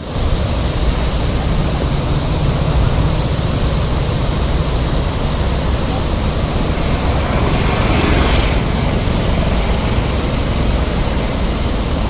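Steady rushing of water at a dam, mixed with wind rumbling on the microphone, with a brief swell about eight seconds in.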